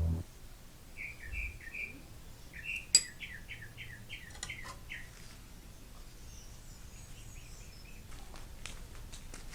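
A bird chirping: a few short calls, then a quick run of about six chirps. There is a sharp click about three seconds in and a few faint ticks near the end.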